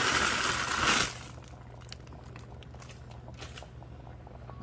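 Frozen mixed vegetables pouring out of a plastic bag into a pot: a noisy rush for about the first second, then a few faint clicks as the pieces settle.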